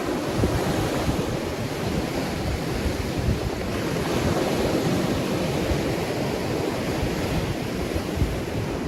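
Ocean surf: a continuous wash of waves with a gentle swell in the middle.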